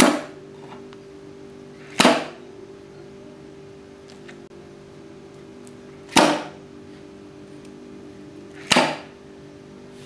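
A 32 A AC contactor clacking four times as its armature pulls in and drops out. The float switch is being tilted between the water-low and tank-full positions, switching the contactor's coil on and off. A faint steady hum runs underneath.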